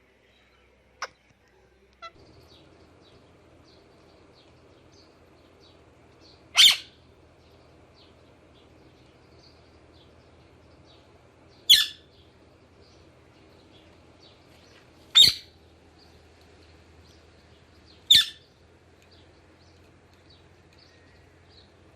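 Pet parakeet giving four loud, sharp screeches a few seconds apart, with soft high chirps in between. A low steady hum starts about two seconds in.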